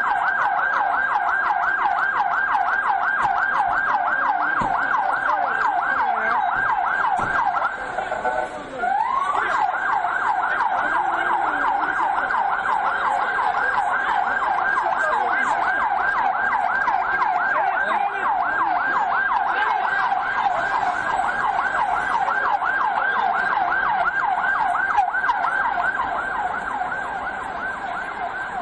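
Emergency vehicle siren in a fast yelp, several rising-and-falling sweeps a second. About eight seconds in it breaks off and comes back with a rising wail into the yelp again, and it fades a little near the end.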